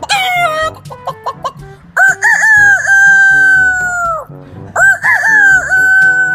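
A man imitating a rooster with his voice: two long cock-a-doodle-doo crows, each opening with a warble and then held on one high note for about two seconds.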